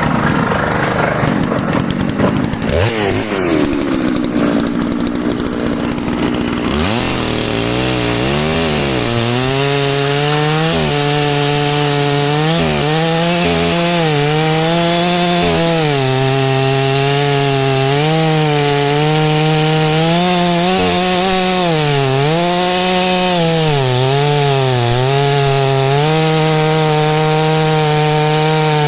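ZimAni MS660 PRO two-stroke chainsaw with a 110 cm bar, running hard and cutting wood. The first several seconds are rough and noisy with a falling pitch. After that the engine holds a high steady note that dips in pitch again and again as the chain bites and then recovers.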